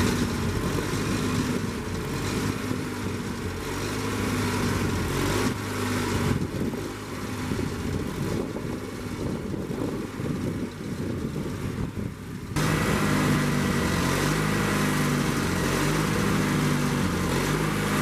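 The 18 hp engine of a Wood-Mizer LT30 portable sawmill running steadily, with a regular pulsing in its hum. About two-thirds of the way through the sound turns suddenly louder and brighter.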